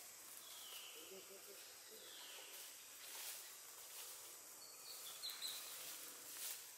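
Faint outdoor background: a steady high hiss with a few short bird chirps scattered through, and a couple of soft clicks.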